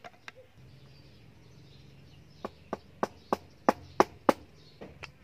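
A cleaver chopping into ripe palm fruit on a wooden chopping block. Two light knocks come at the start, then from about halfway a run of about nine sharp chops, roughly three a second, the loudest a little before the end.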